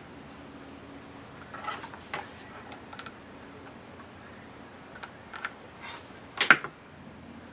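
Scattered light clicks, taps and rustles of small paper craft pieces and tools being handled on a tabletop during hot-glue work, with the loudest sharp clack about six and a half seconds in.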